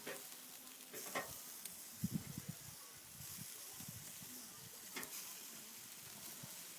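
Tandoori chicken sizzling faintly on a grill over an open wood fire, with a few sharp crackles and some low rumbling thumps about two seconds in.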